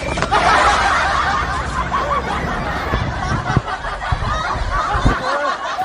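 Several people laughing and snickering at once, a steady babble of overlapping voices.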